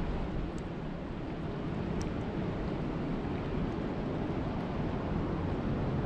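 Steady rain falling on a lake's surface, an even low rushing with a few faint high ticks.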